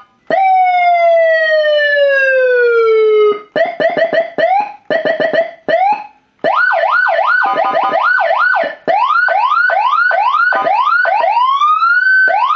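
Electronic vehicle siren with Senken and Whelen tones, played loud through a Whelen Lo-Pro siren speaker and run through its tones in turn. It gives one long falling tone, then a few short chirps, then a fast rising-and-falling yelp about twice a second. About a second before the end a slow climb in pitch breaks into the yelp again.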